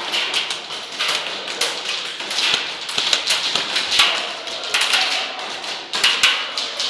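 Airsoft gunfire: rapid, irregular clicks and taps of guns firing and BBs striking surfaces, with some heavier knocks.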